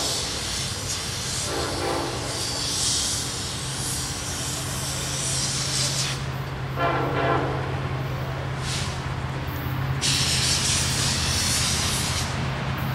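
Distant freight locomotive air horn, two blasts of about a second each, the first near two seconds in and the second near seven seconds, over a low steady rumble and a hiss.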